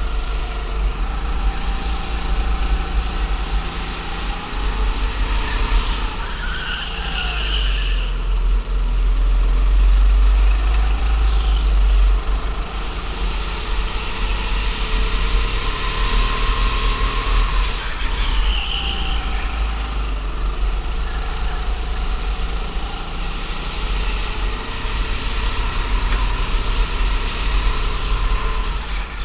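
Go-kart engine heard from on board during a lap, its revs rising and falling again and again as it accelerates out of corners and backs off into them, over a heavy steady low rumble.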